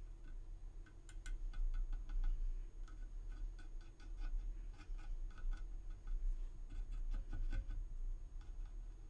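Quick, irregular ticks and clicks of a worn-out paintbrush dabbing filler into the seams of a resin model kit, several a second.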